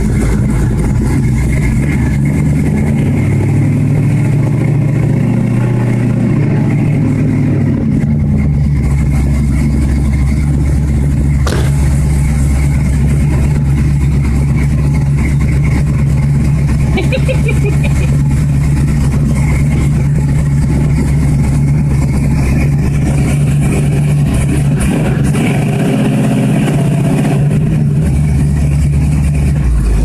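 Car engine idling, with the engine speed raised and held for several seconds twice, near the start and near the end. The recording is loud and distorted.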